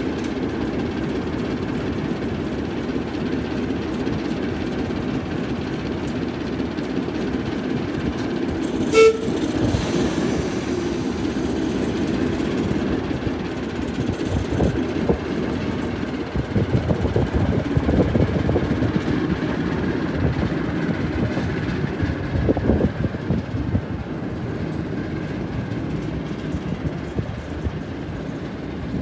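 Class 08 diesel shunter's English Electric six-cylinder engine running as the locomotive moves, a steady low rumble, with one short toot about nine seconds in. In the second half the rumble turns uneven, rising and falling with louder peaks.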